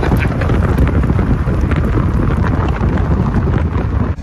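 Heavy wind buffeting on the microphone while riding a moving tractor, with scattered rattles and knocks throughout.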